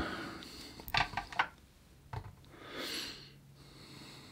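Hands handling a small carbon-fibre FPV quad and its LiPo battery on a digital kitchen scale. A quick cluster of plastic clicks and taps comes about a second in, another tap a little after two seconds, and a brief soft rasping rub near three seconds.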